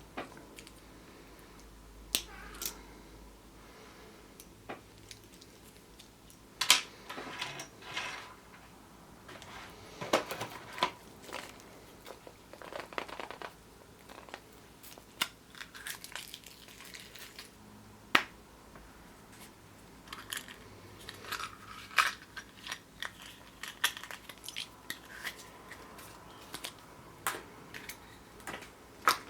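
Hands opening Kinder Surprise eggs: foil wrappers crinkling, with sharp snaps and clicks from the chocolate shells, the plastic capsules and small plastic toy-car parts, at irregular intervals.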